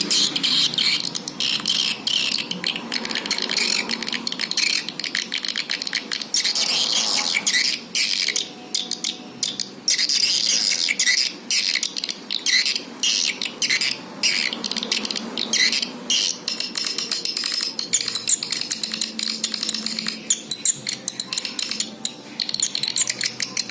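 Swiftlet call recording: a dense, continuous flock chatter of high, rapid chirps and clicking twitters. It is a lure call played to draw swiftlets into a nesting house.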